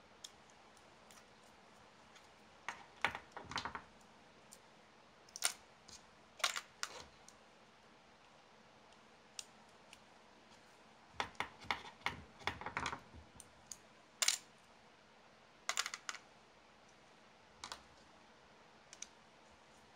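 A screwdriver and small plastic parts of a WLtoys 1/28 RC car clicking and clattering as the part is worked apart by hand. The clicks are scattered and come in several short clusters, with quiet stretches between them.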